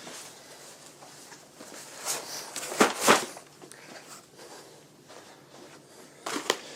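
Boxes of ammunition being handled and moved about, giving a few short knocks and rustles, a cluster about two to three seconds in and another near the end.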